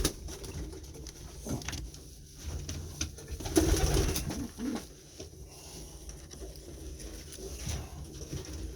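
Homing pigeons cooing in a small loft, the loudest stretch about three and a half seconds in, with a few short knocks.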